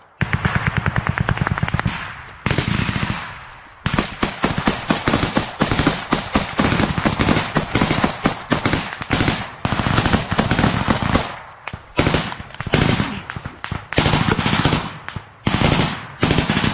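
Close automatic gunfire in rapid bursts. It pauses briefly twice in the first few seconds, runs almost without a break for several seconds in the middle, then breaks into shorter bursts near the end.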